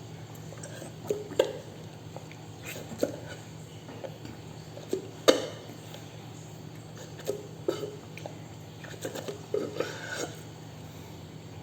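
Close-up eating and drinking sounds from a person having taro milk tea: scattered short smacks and clicks, the loudest about five seconds in and a cluster near the end, over a steady low hum.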